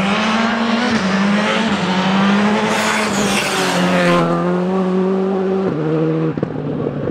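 Škoda Fabia R5 rally car's turbocharged four-cylinder engine running hard at high revs as the car passes close by, with a rush of noise about three seconds in. The note then drops in steps as the driver lifts off, and sharp pops come near the end.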